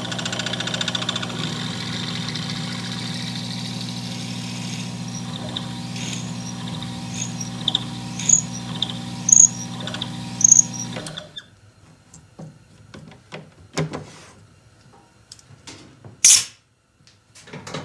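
Small hobby lathe running steadily while a twist drill fed from the tailstock bores a center hole in the end of a Predator pool cue shaft, with five short, high squeaks from the bit as it cuts. The lathe stops abruptly about eleven seconds in, leaving a few light clicks and one sharp knock near the end.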